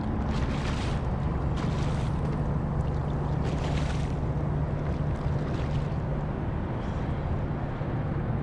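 Steady rush of water against a kayak hull with wind noise on the microphone, as the kayak is towed by a hooked fish.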